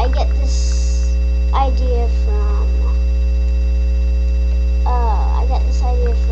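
Loud, steady electrical mains hum with a fixed high whine above it, and brief faint voices now and then over it.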